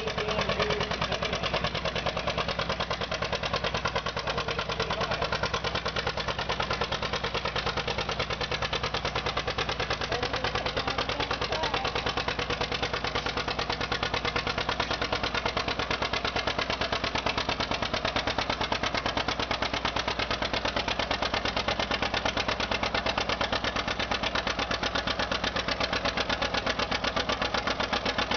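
Antique John Deere two-cylinder tractor engine working hard under load as it pulls a weight-transfer sled, its exhaust beating in a steady, rapid, even pulse.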